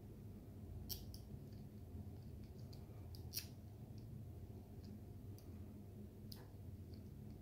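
Plastic segments of a snake twist puzzle clicking as they are rotated into new positions: a few sharp, irregular clicks, the loudest about three and a half seconds in.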